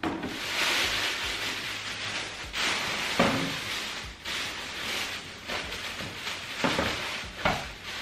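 Thin plastic shopping bags rustling and crinkling as hands rummage through them, with a few sharper crackles along the way.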